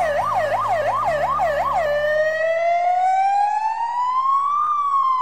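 Electronic toy siren from a plastic toy steering wheel: a fast yelping wail of about six quick up-and-down sweeps, then a long slow rise and fall in pitch.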